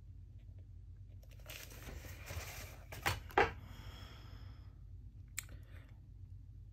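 Paper rustling and sliding for about two seconds as the taped-down watercolor painting is shifted on the table, ending in two sharp knocks close together. A single faint click follows near the end.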